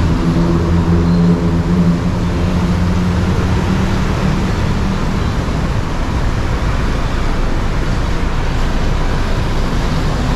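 City road traffic: a nearby vehicle's engine hums low and fades out about halfway through, over a steady wash of traffic noise.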